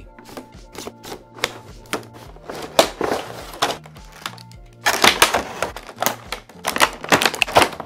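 Clear plastic blister packaging crinkling and clicking as it is handled, with a busy run of sharp crackles over the last three seconds.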